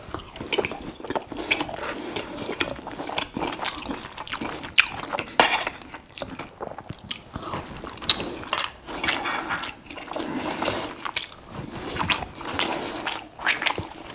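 Close-miked chewing of a mouthful of burger patty and rice, with wet mouth noises. Sharp clicks come now and then as knife and fork meet the plate, the loudest about five and eight seconds in.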